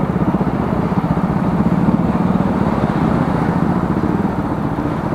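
Bajaj Dominar 400's single-cylinder engine running steadily at low revs, an even pulsing thrum, as the motorcycle rolls slowly up to a toll booth.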